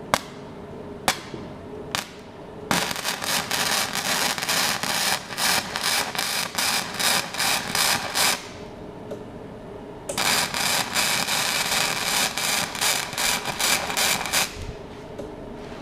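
Flux-core MIG welder arc crackling and spitting as it lays tack welds on rusty steel: three short snaps as the arc strikes, then two runs of steady crackle, about five and four seconds long, with a short pause between.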